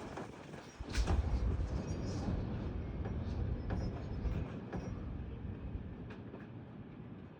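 Gusty thunderstorm wind rushing. It surges sharply about a second in, then slowly eases.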